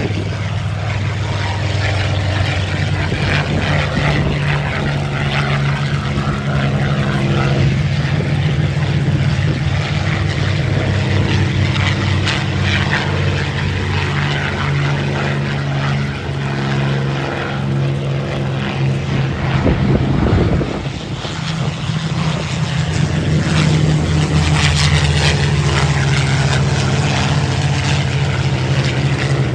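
Spitfires' V12 piston engines running at take-off power as the fighters take off and climb away: a steady deep drone with propeller noise. It peaks about two-thirds of the way in, dips briefly, then builds again as more aircraft come through.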